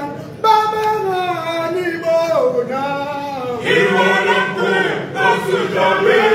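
Male choir singing unaccompanied in harmony, the voices holding notes together and sliding in pitch between them.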